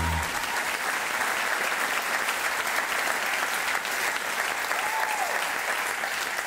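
Audience applauding steadily. Walk-on music cuts off just at the start.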